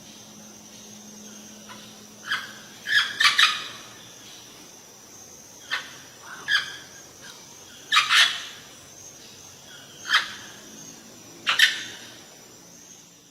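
Parrot giving a series of short, harsh squawking calls at irregular intervals, some in quick pairs, with the loudest calls about three seconds in and again around eight seconds.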